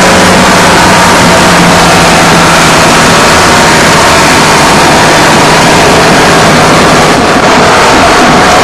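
Loud, distorted, continuous parade noise that overloads the microphone, with a steady low hum that drops out about seven seconds in.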